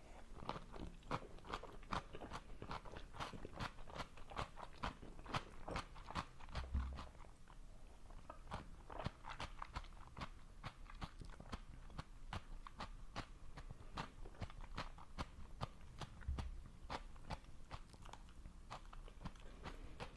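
Close-miked chewing of food, with many crisp, crunchy clicks coming a few times a second.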